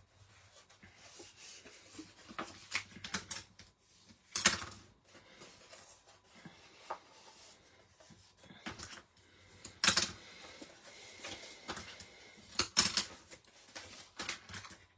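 Scored cardstock being folded and burnished with a bone folder: paper rustling and creasing with light taps, and three louder swishes of the folder rubbing along the folds.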